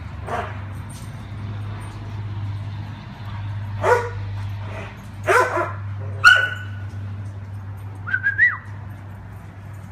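Dogs barking as they play, a few scattered sharp barks with the loudest about six seconds in, then a short rising yelp near the end, over a steady low hum.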